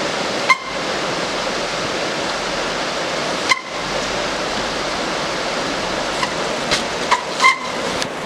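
Steady rushing noise of wind and rain, broken by a few short, sharp clicks: one about half a second in, one a few seconds later, and a quick cluster near the end.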